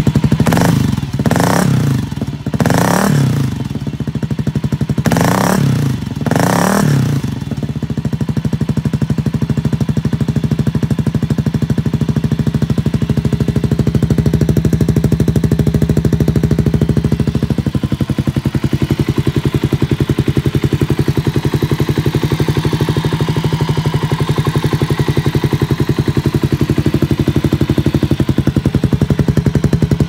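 Kawasaki KLR 250 single-cylinder four-stroke engine through an aftermarket Cobra exhaust: about five quick throttle blips in the first seven seconds, each rising and falling in pitch, then a steady idle.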